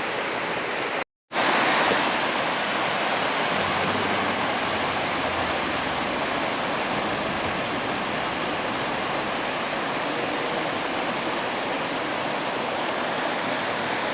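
Mountain stream rushing over rocks: a steady hiss of water. It cuts out for a moment about a second in and comes back a little louder.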